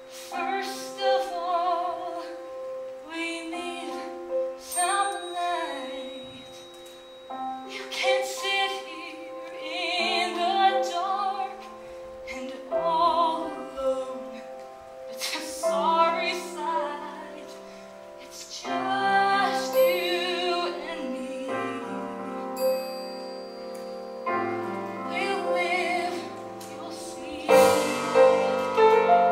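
A woman singing a musical-theatre ballad with vibrato over held piano chords from a small live band. The accompaniment swells and gets louder near the end.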